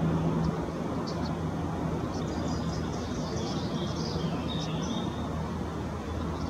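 Steady low hum and rumble, with small birds chirping in short high calls on and off, most in the middle.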